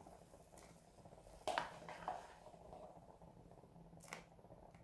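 Pork broth in a stainless steel stockpot, with a sudden splash and burst of bubbling about a second and a half in that fades over about a second: explosive boiling set off by a slice of raw potato dropped into the broth. A short sharp click follows near the end.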